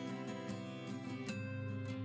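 Background music played on plucked acoustic guitar.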